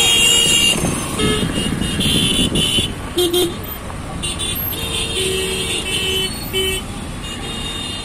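Vehicle horns honking over the steady rumble of engines in congested road traffic: several toots at different pitches, some high and some low, with a longer stretch of overlapping horns in the second half.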